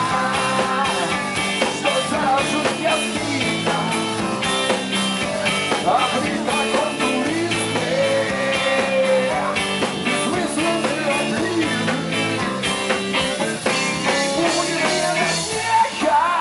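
Rock band playing live, full and loud, with a steady beat under bending melodic lines.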